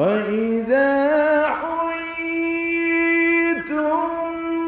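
A male Quran reciter chanting in the melodic mujawwad style. His voice comes in after a pause on a rising note, steps up, then holds one long ornamented note for about two seconds before a short dip and a new melodic phrase.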